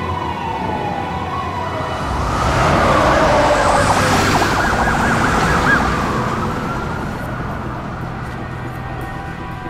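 Ambulance siren approaching and passing: it swells to a rapid warble, loudest a few seconds in, then fades away.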